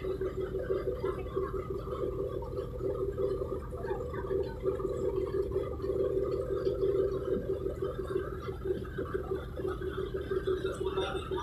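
A ship's engine and machinery hum: a steady droning tone that flutters quickly, over a low rumble.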